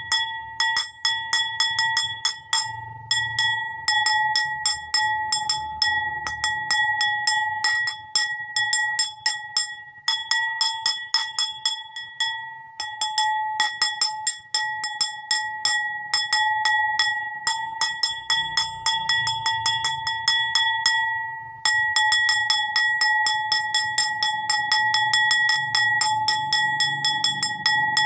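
A bowl struck over and over in quick succession, several taps a second, each one a sharp clink, with the bowl's steady high ringing tone carrying on between strikes.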